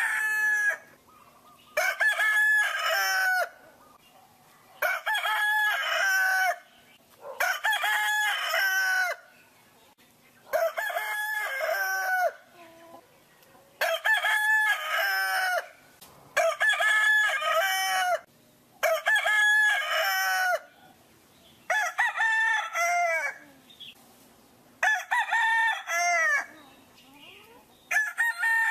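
A rooster crowing over and over, about ten cock-a-doodle-doo calls one after another, roughly one every three seconds. Each crow lasts a second or two and drops in pitch at the end.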